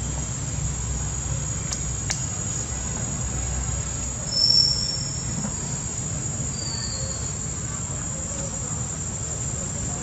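Steady high-pitched insect drone over a low outdoor rumble, with a short high chirp about four and a half seconds in and a fainter one a couple of seconds later.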